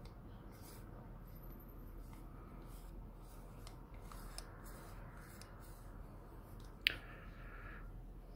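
Helios-40 85 mm f/1.5 lens being handled: faint ticking and rubbing of its knurled metal rings as they are turned, with one sharp click about seven seconds in followed by a short grating rasp.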